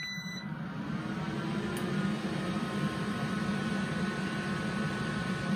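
Ventilation fan of a Nordberg NV150 parts-washer cabinet switched on with the cabinet's power, spinning up over the first couple of seconds and then running with a steady hum. A short high beep sounds right at switch-on.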